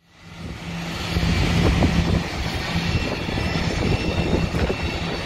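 Airbus A321 being pushed back by a tug: a steady, uneven low rumble of jet-airliner and ground noise with a low hum and a faint high whine, fading in over the first second.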